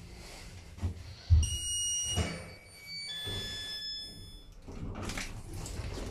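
Passenger lift arriving at a floor: a thump about a second in, then an electronic chime of three clean tones, each lower than the last. Near the end come the rumble and swish of the car doors sliding open.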